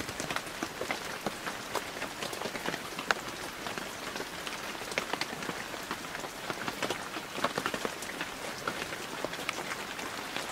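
Steady heavy rain falling on hard surfaces, a continuous hiss full of many sharp individual drop ticks.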